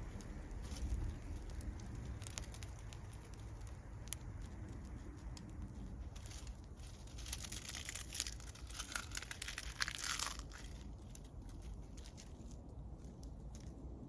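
Wood bonfire crackling, with scattered sharp pops and a denser run of crackle and hiss in the middle.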